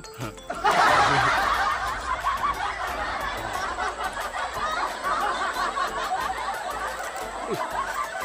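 Canned laughter sound effect: a crowd laughing and chuckling, starting suddenly about a second in and slowly fading.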